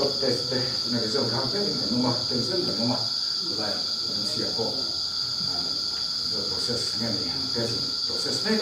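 Night insects, such as crickets, trilling in one steady, continuous high-pitched drone, with people talking indistinctly underneath.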